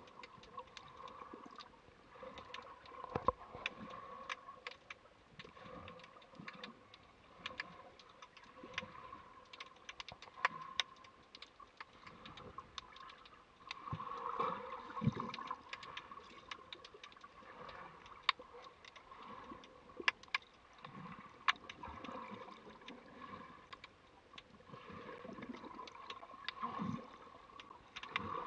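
Underwater ambience picked up by a submerged camera: a faint, muffled murmur of moving water with many scattered sharp clicks and crackles, swelling a little louder now and then.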